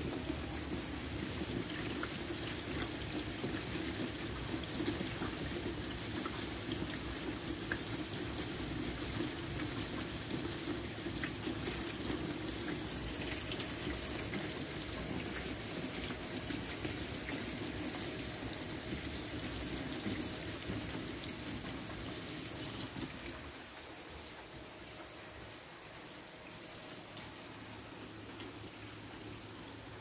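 Steady rain with water pouring and splashing. It drops noticeably quieter about three-quarters of the way through.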